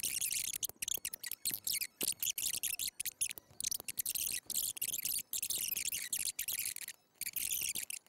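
Computer keyboard typing: quick, irregular runs of keystroke clicks with short pauses between them.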